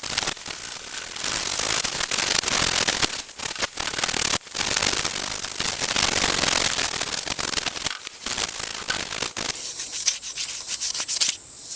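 Abrasive scrubbing on metal: a harsh, even rasp in long runs broken by brief pauses, growing softer near the end.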